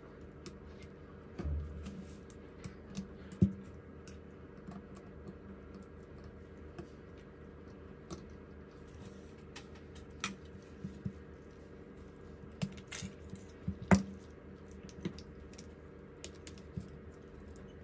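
Scattered small clicks and taps of tools and parts being handled during a phone repair, over a steady low hum, with two sharper knocks about three and a half seconds in and near fourteen seconds.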